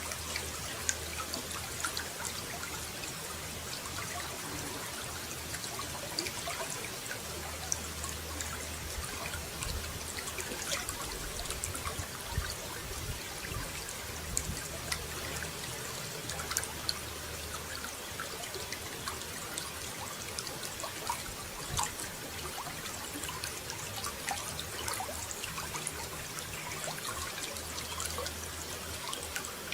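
Running water trickling and pouring steadily, with many small splashes of drops.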